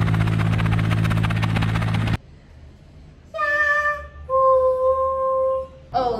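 Helicopter running with a rapid, even rotor chop, cutting off abruptly about two seconds in. Then two long held notes, the second lower and longer.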